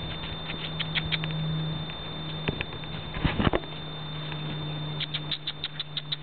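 Hooves of a Percheron cross gelding tapping lightly, with a quick run of clicks near the end and a louder thump about three seconds in, over a steady low hum.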